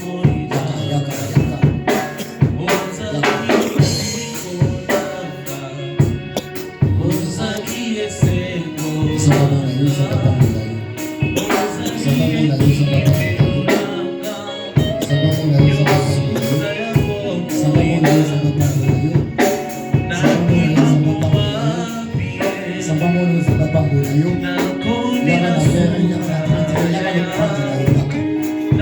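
Music with a drum kit beat, a bass line and singing voices, playing on without a break.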